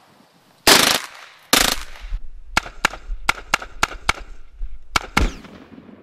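Gunfire: a single shot about a second in, two close shots, then a quick string of about seven shots at roughly four a second, and two more near the end.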